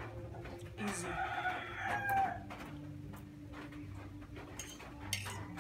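A rooster crowing once, a call of about a second and a half starting about a second in, with a few light clinks of a fork on a plate.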